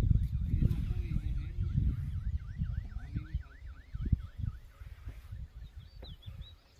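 Uneven low rumbling noise, with a faint siren wailing rapidly up and down, about three sweeps a second, through the first half. A few short high chirps like a bird's come near the end.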